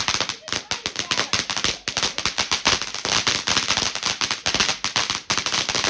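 A firework crackling: a dense, unbroken run of small sharp cracks, many each second, with a short lull a little past five seconds in.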